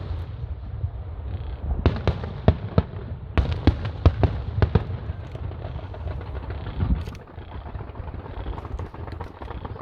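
Aerial fireworks bursting: a rapid, irregular run of sharp bangs over a continuous low rumble, thinning out to fewer, softer reports in the second half.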